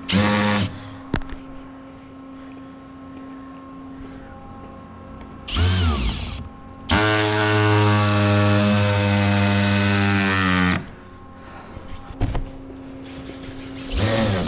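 Power drill driving screws into crate lumber: a short burst at the start, a spin-up with rising pitch about five and a half seconds in, a steady run of about four seconds, and another short burst near the end.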